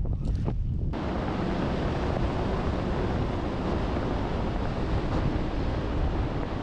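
Wind rushing over the microphone during a parachute descent: a steady, noisy hiss that suddenly turns brighter and fuller about a second in.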